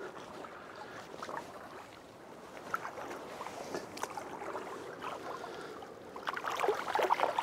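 Shallow river water sloshing and splashing as a person wades in and holds a barbel in the water to release it; the splashing grows busier and louder near the end.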